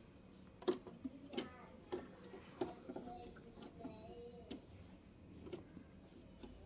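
Irregular sharp clicks and knocks, about nine spread over several seconds, the loudest less than a second in, from hands working the controls and parts of a Brother JV1400 sewing machine while it is set up to sew; the machine itself is not running.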